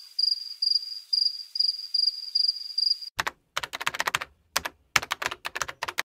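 A cricket-chirp gag sound effect: a high chirp repeating about twice a second, which stops a little after three seconds in. Then rapid, irregular keystroke clicks from typing on a typewriter-style keyboard with round keycaps.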